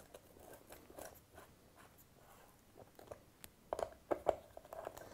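Faint clicks and small scrapes of a hex key working the Allen bolts of an SPD-SL cleat on a road shoe's sole, as the bolts are tightened down. The ticks are scattered at first, with a denser run of louder ones near the end.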